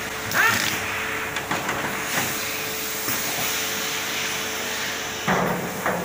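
Vacuum-chamber helium leak tester running with a steady machine hum. A rush of air comes about half a second in, with a few clicks after it, and an abrupt burst of air and door noise comes near the end as the machine's pneumatic chamber doors open.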